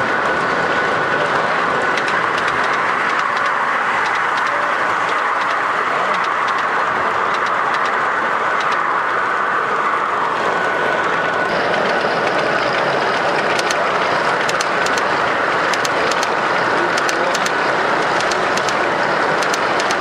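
Gauge 0 model trains rolling past on the layout: a steady rolling rumble of wheels and running gear with a thin, high, steady whine, and sharp clicks of wheels over rail joints, which come thicker in the second half.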